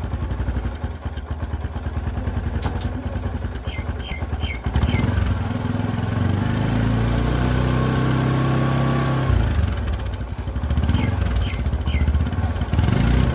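Motorcycle engine running with the rear wheel turning, its drum brake shoes freshly cleaned. The engine speed picks up from about five seconds in and eases back about four seconds later. No brake squeal is heard.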